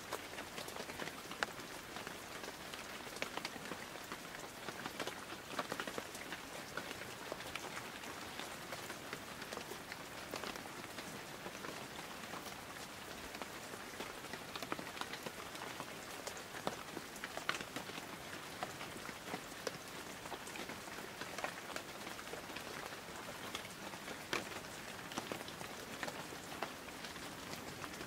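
Steady rain falling: a fairly quiet, even hiss of drops with many small, quick ticks scattered through it.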